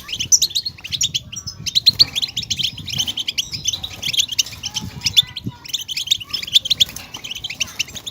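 European goldfinch song: a fast, continuous twittering of short chirps, broken by brief pauses about a second and a half in and again about five and a half seconds in.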